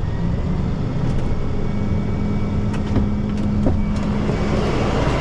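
Rollback tow truck's engine running steadily with a constant low hum, with a few light clicks.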